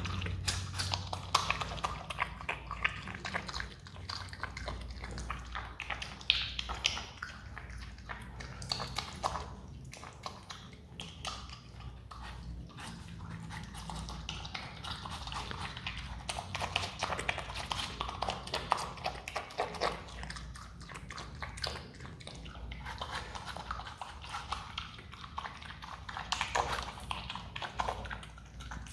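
Himalayan marmot biting and chewing into a slice of watermelon: a rapid, nearly continuous stream of small bites.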